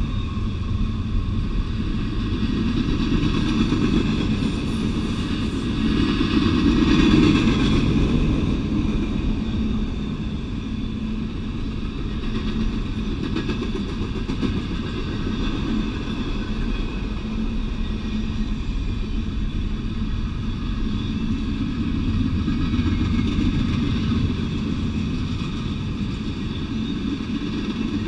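Double-stack container well cars of a CSX intermodal freight train rolling past on the rails: a steady rumble of wheels on track that swells briefly about seven seconds in.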